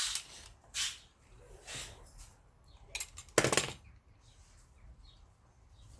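Several short scraping and snipping sounds of electrical wire being stripped by hand, the loudest and longest about three and a half seconds in.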